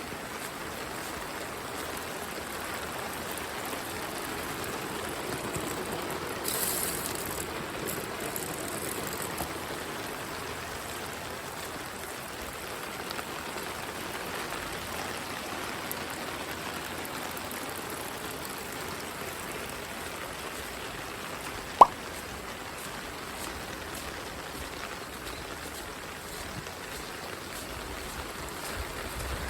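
Steady rain falling. A single sharp click cuts through about three-quarters of the way through.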